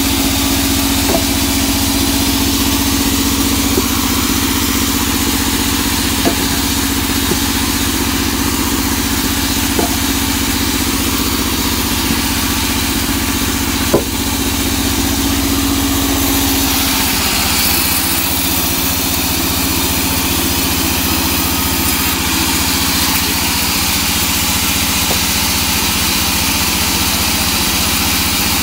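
Vertical band sawmill running without cutting, a steady machine hum that drops slightly in pitch a little past halfway. A few sharp knocks come from teak logs being handled, the loudest about halfway through.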